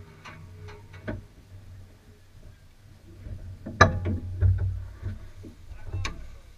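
Muffled idle of a stationary John Deere tractor engine, a low steady hum, with scattered light clicks and knocks. The loudest knock comes about four seconds in.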